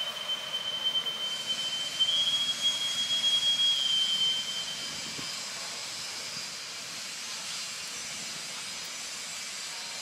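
Insects droning: a steady high-pitched whine over a hiss that stops about four seconds in, leaving a fainter hiss.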